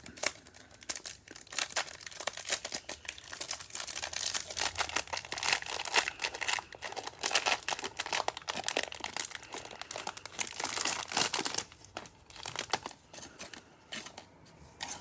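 Packaging of a trading-card hanger box being torn open, with a plastic wrapper crinkling and tearing in a long irregular run that thins out near the end.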